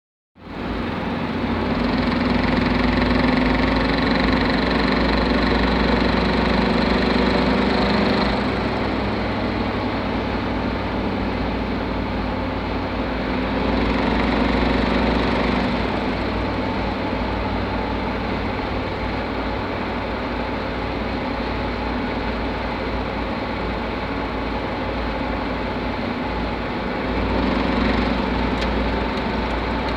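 A vehicle running steadily with a knock in the V5MT1 unit, getting louder for a few seconds three times along the way.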